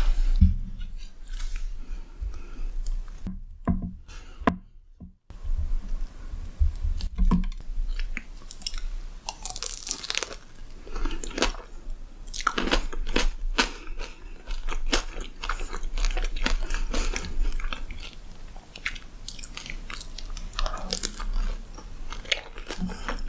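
Close-miked ASMR eating: crunchy bites and chewing, with crackling crunches throughout and two brief dead-silent gaps about four seconds in.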